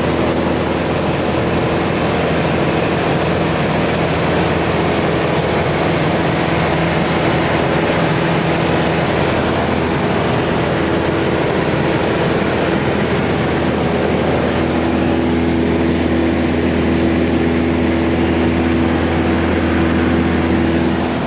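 Steady drone of a 1974 Cessna 177B Cardinal's four-cylinder Lycoming O-360 engine and propeller in flight, heard inside the cabin, with a constant hiss of air noise under it.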